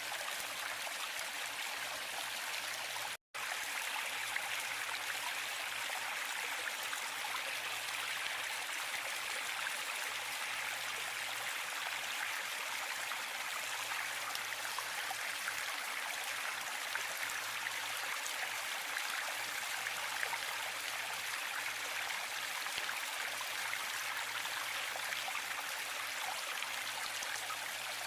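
Waterfall: a steady, even rush of falling water, with a split-second dropout to silence about three seconds in.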